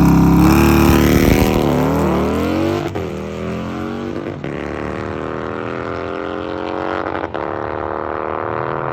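Harley-Davidson V-twin drag bike running hard down the strip, its engine note climbing in pitch and breaking off briefly at each gear shift. It is loud at first and grows quieter as it pulls away.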